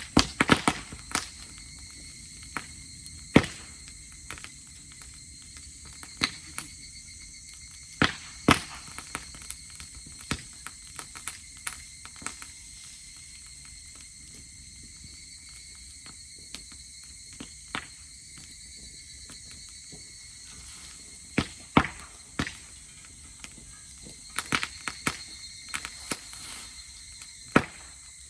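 Campfire of dry grass crackling, with irregular sharp pops, a few of them loud, over steady high insect chirring.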